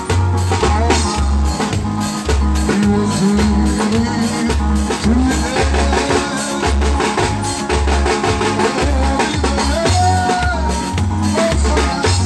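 A live band playing loud, amplified music. A drummer on a drum kit with cymbals keeps a steady beat over heavy bass notes about twice a second, with a melody line that bends in pitch above them.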